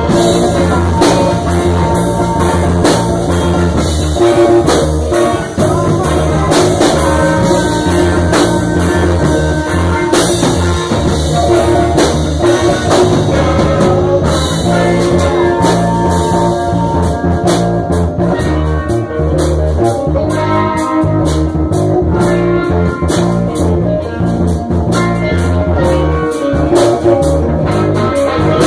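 A band rehearsing a blues number live: guitar over a drum kit, playing steadily and loudly.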